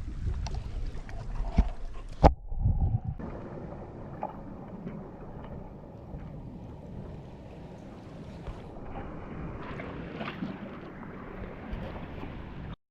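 Wind buffeting the microphone over water noise from a small paddled boat on the water. There is a sharp click about two seconds in and a couple of abrupt changes in the sound, and it cuts off suddenly just before the end.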